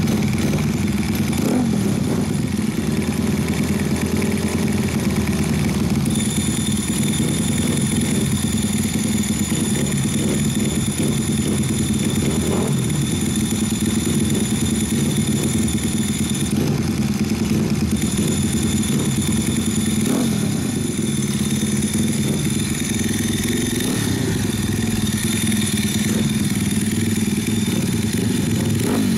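Custom Honda Monkey with a 124.8 cc engine and an OVER exhaust, idling steadily alongside a second small motorcycle, with a few short throttle blips.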